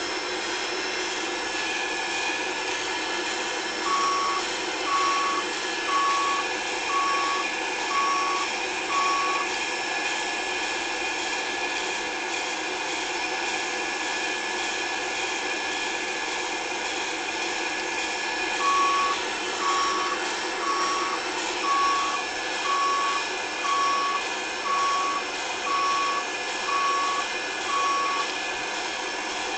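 A vehicle's reversing alarm beeps about once a second in two runs, six beeps and then, after a pause, ten more. Under it an engine drones steadily.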